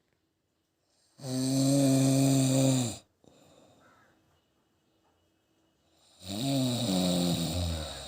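Snoring: two loud, rasping snores about five seconds apart, each lasting about two seconds with its pitch dropping near the end, each followed by a soft breath.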